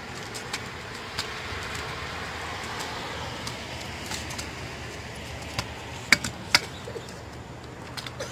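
Small two-wheel kick scooter rolling over skatepark concrete under a steady hiss, with scattered sharp clacks, the two loudest about six seconds in.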